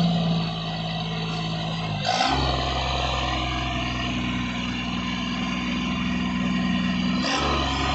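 Kubota compact tractor's diesel engine running steadily while its front loader works. The engine note shifts abruptly about two seconds in and again near the end.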